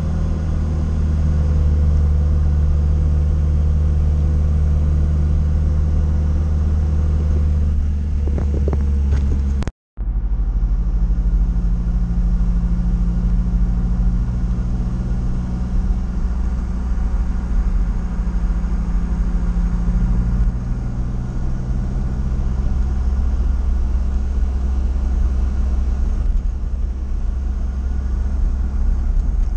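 UAZ 2206 van's engine running steadily at road speed, with a low drone and road rumble. The sound cuts out for a split second about ten seconds in.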